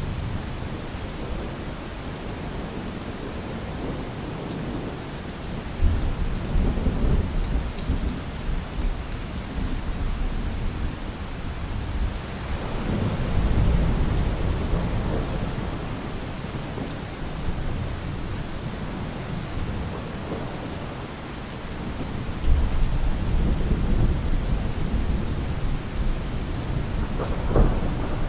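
Steady rain falling, with deep rumbles of thunder swelling and fading three times: about six seconds in, around the middle, and again a few seconds before the end.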